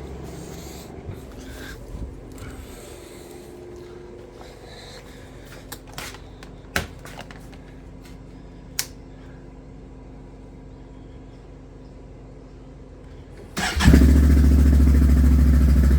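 A few faint clicks and knocks, then near the end the Can-Am Outlander Max XT 650's Rotax V-twin starts and runs loudly and steadily through a newly fitted Yoshimura slip-on exhaust.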